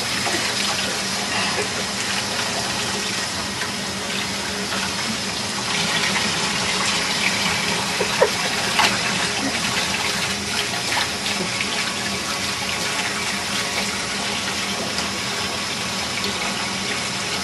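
Water running steadily from a tap during a dog's bath, with a couple of brief knocks about halfway through.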